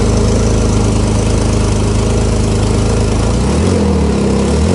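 A Porsche Carrera GTS's 3.8-litre flat-six idles steadily with its sport exhaust valves closed. Near the end it gives a quick rev that rises and falls back.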